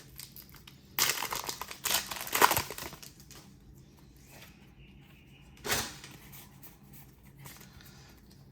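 Foil wrapper of a Pokémon trading-card booster pack crinkling and tearing open. Several loud rustling bursts come between about one and three seconds in, and a single short one about two-thirds of the way through.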